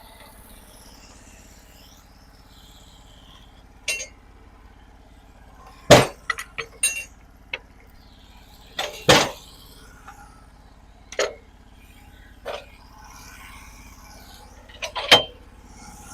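A sawmill engine running steadily at low speed, not cutting, with about eight sharp clanks and knocks spread through it as the log is worked into position on the mill.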